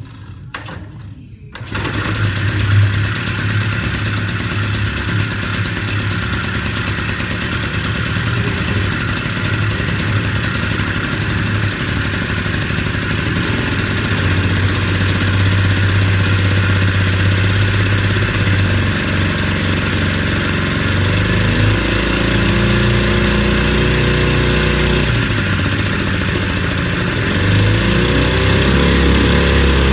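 Vintage outboard with a Villiers 7F two-stroke engine starting about a second and a half in, then running steadily loud with its speed stepping up and down and rising near the end.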